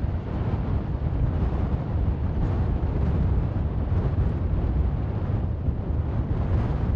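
Sikorsky CH-148 Cyclone helicopter hovering, its four-bladed main rotor and twin turboshaft engines running steadily with a deep, pulsing rumble.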